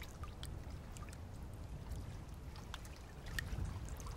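Quiet trickle of water running in a thin film over rock, with scattered small drips and plinks over a low, steady rush.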